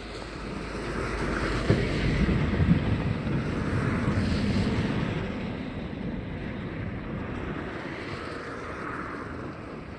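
Thunder rolling: a low rumble that swells over the first couple of seconds, crackles at its peak and then dies away slowly, with wind noise on the microphone.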